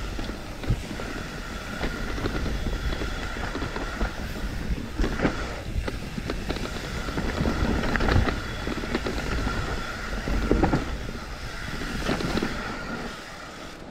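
Mountain bike descending a muddy forest trail, heard from a rider-mounted camera: wind buffeting the microphone with tyres rumbling over dirt and the bike rattling over bumps, with a steady high buzz that drops out a few times and several sharp knocks.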